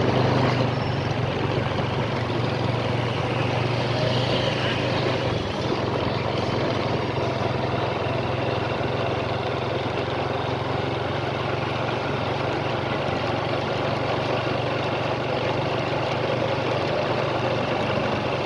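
A steady, low engine hum over a continuous background of noise.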